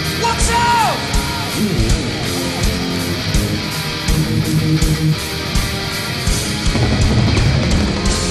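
Heavy metal band playing live: distorted electric guitars and a steady drum beat, with bending lead-guitar notes in the first second or so.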